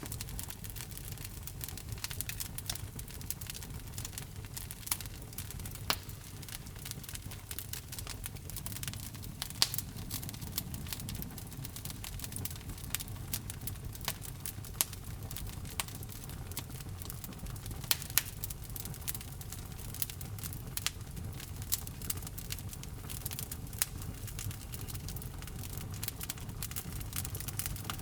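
Wood fire in a fireplace crackling, with frequent sharp pops, a few of them louder, over a low steady rumble of the flames.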